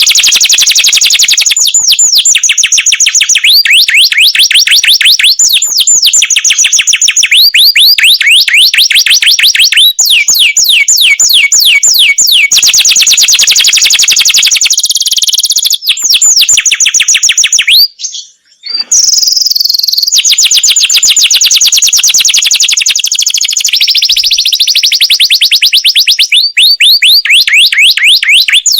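Male domestic canary singing long rolling trills: run after run of very fast repeated high notes, each run at a different pitch, with a sudden short break a little past the middle.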